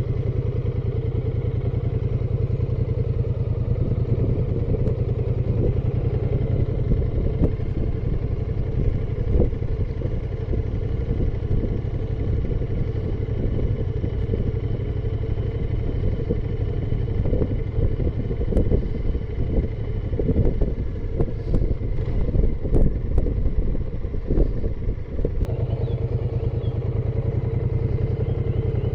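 Motorcycle engine running steadily under way, with a dense low drone. About two-thirds of the way through, a stretch of uneven knocks and clatter comes over it.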